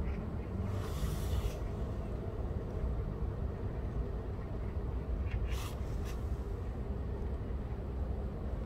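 Steady low background rumble, with two brief rustling hisses: one about a second in and one a little past halfway.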